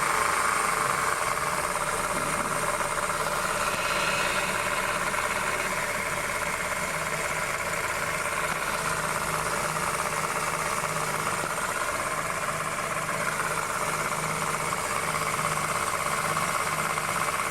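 2008 Honda New Civic engine idling steadily with its accessory belt driving, carrying a bearing-like noise from the belt-driven accessories that the tensioner does not change. The mechanic traces it with a stethoscope to the power steering vane pump, which is running louder than normal.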